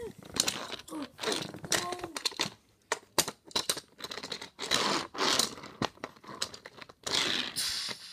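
Plastic toy trains and track pieces being handled: repeated clicks, knocks and short scraping scuffs as they are moved and bumped together. A voice hums briefly in the first two seconds.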